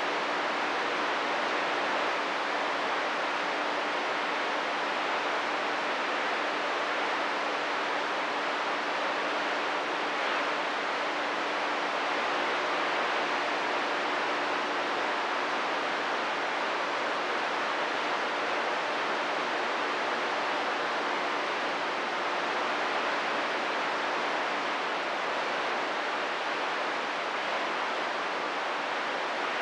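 Steady static hiss from a CB radio receiver on an open channel with no one transmitting, with a faint steady hum underneath.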